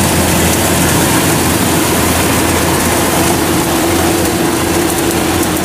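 Kubota DC105X rice combine harvester running steadily, a loud unbroken diesel drone with a held tone and a wash of machinery noise over it.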